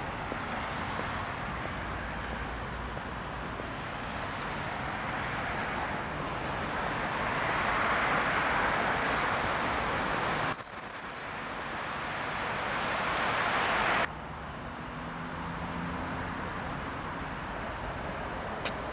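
Steady road traffic noise from a busy multi-lane road, swelling as vehicles pass, with a high thin squeal twice, at about five seconds and again at about eleven. The sound changes abruptly about fourteen seconds in and turns quieter.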